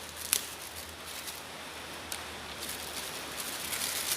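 Faint rustling of packaging being handled as a helmet ratchet is unboxed, with a sharp click about a third of a second in and a smaller one about two seconds in.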